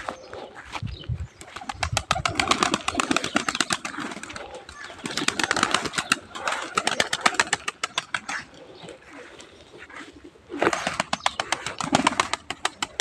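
A flock of domestic pigeons flapping their wings in three long bursts of rapid wing-beats as they land and shift about on the ground, with some cooing.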